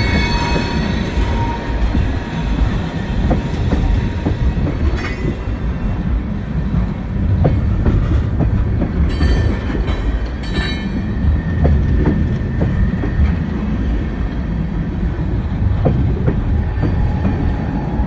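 Tank cars of a Union Pacific freight train rolling past close by: a steady heavy rumble of steel wheels on rail, with irregular sharp clanks. A thin wheel squeal sounds faintly near the start and again near the end.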